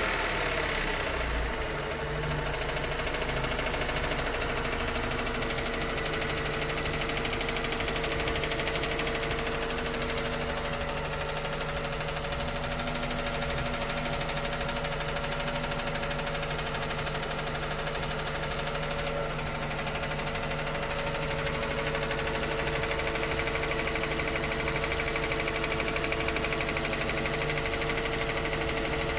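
Suzuki Ignis K12D 1.2-litre four-cylinder petrol engine idling cold with a light ticking. The engine speed drops and settles in the first couple of seconds. The tick appears only on a cold engine and goes away as it warms up.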